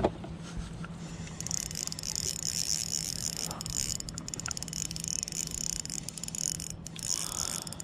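Fishing reel being cranked to bring in a hooked shad: a continuous high whir starts about a second and a half in, over a low steady hum.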